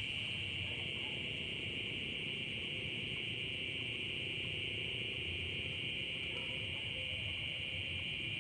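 Steady night-time insect chorus, a continuous high trilling of crickets, over a low, even rumble.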